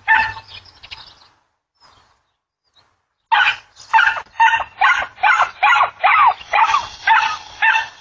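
Dog barking: a couple of barks at the start, then a brief quiet, then a rapid run of barks from about three seconds in, about three a second.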